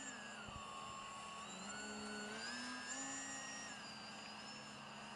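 Faint whine of a foam RC delta wing's electric motor and propeller in flight, its pitch shifting with the throttle: dropping about half a second in, climbing again between two and three seconds in, then easing off.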